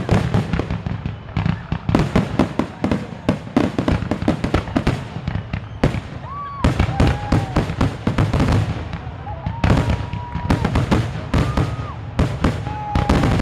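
Fireworks going off in rapid volleys of bangs and crackles. Several short whistling tones sound about halfway through and again near the end.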